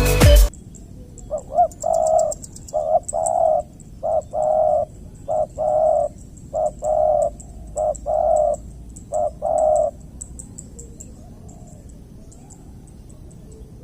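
Music cuts off about half a second in, then a spotted dove (derkuku) gives its calling coo: about seven short-then-long coo pairs over some nine seconds, then stops. A faint, rapid high ticking, like insects, runs underneath.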